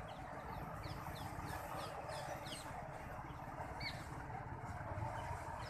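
Steady rushing noise of a swollen, flooding river, with a bird calling over it: a quick run of short downward chirps, then two single calls later on.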